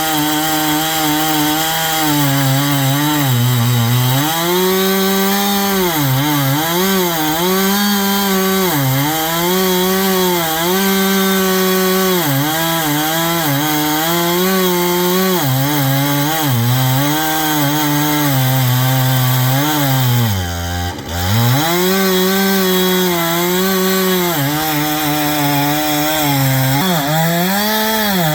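Two-stroke chainsaw engine running under load as it mills a slice lengthwise off a log, its speed rising and falling with the cut. About three-quarters of the way through it bogs down sharply for a moment, then picks back up.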